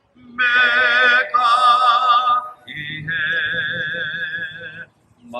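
A singer holding long, sustained notes with wide vibrato, about four phrases with brief breaths between them, over a faint low steady accompaniment.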